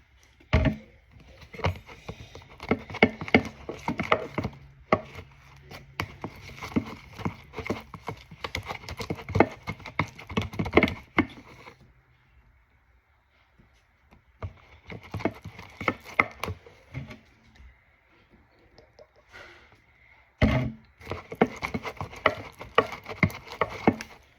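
Spoon knocking and scraping against a bowl while slime is stirred, in runs of quick clicks and taps with pauses between.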